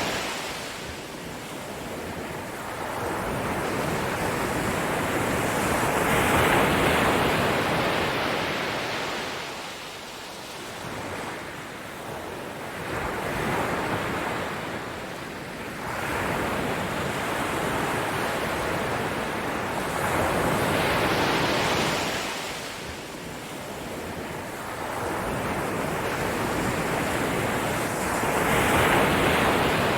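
Ocean waves breaking and washing up a shore, swelling and ebbing in slow surges about every seven or eight seconds.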